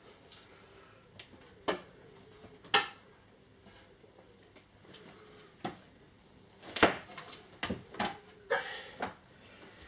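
Scattered sharp clicks and knocks from a wooden corner shelf unit being handled and taken apart by hand, with a few loud knocks early on and a quicker run of them in the last few seconds.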